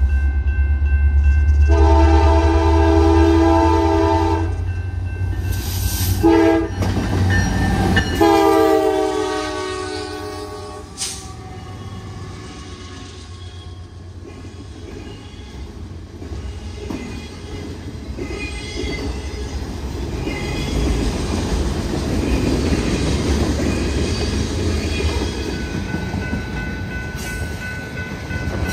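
Diesel freight locomotive air horn blowing the grade-crossing signal: a long blast, a short one, then a final long blast whose pitch drops as the locomotives pass, over the deep rumble of the engines. Then the freight cars roll by with a steady rumble and clatter of wheels on rail.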